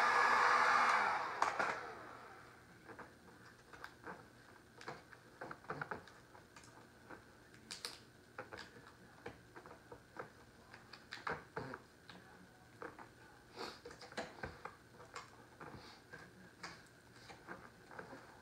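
A heat gun blowing steadily, cutting off about a second and a half in. After it, light irregular crackles and clicks of heat-softened vinyl wrap film being folded and pressed around a board's corner by hand.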